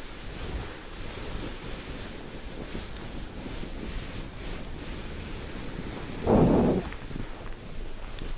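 Wind buffeting the microphone in a steady rushing noise, with a brief, much louder low rumble about six seconds in.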